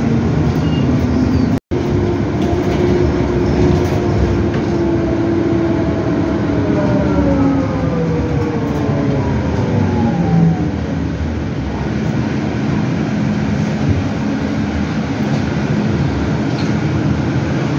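Cabin noise of a CAIO E-Millennium battery-electric city bus on the move, with the whine of its Eletra electric traction motor. The whine falls in pitch over several seconds as the bus slows, then steady running noise goes on. The sound cuts out for an instant about two seconds in.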